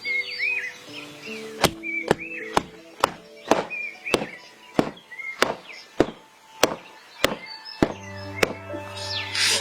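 Music with held low tones and a sharp knock about every half-second, plus short chirps. The held tones drop out in the middle while the knocks carry on.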